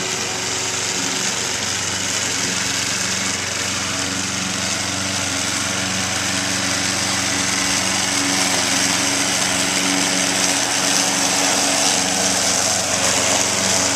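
Toro walk-behind rotary lawnmower's small petrol engine running at a steady speed as the mower moves, getting slightly louder near the end as it comes closer.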